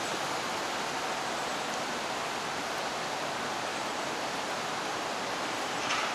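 Steady, even rushing hiss of outdoor background noise, with one short faint click near the end.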